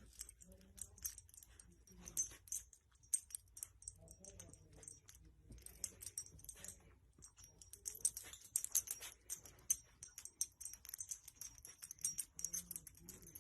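Faint, irregular small clicks and light jingling, busiest about eight to ten seconds in.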